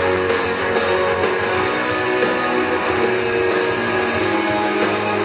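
A live rock band playing through an arena sound system, with guitar over the band and notes held steadily, recorded from among the audience.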